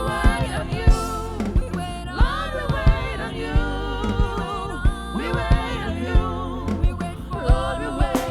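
Gospel worship music: a vocalist singing melismatic runs over a band with a steady drum beat.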